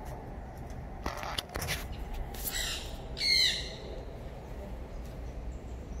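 A parrot squawking: a few harsh calls, the loudest a short screech about three seconds in.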